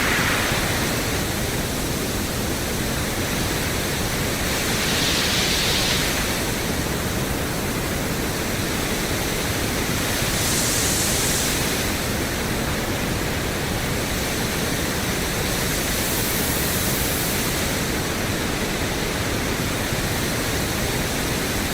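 Pink noise test signal played through a Yamaha EQ-70 ten-band graphic equalizer: a steady, even hiss in which one boosted band after another stands out, stepping higher in pitch about every five seconds, from around 2 kHz up to the top 16 kHz band.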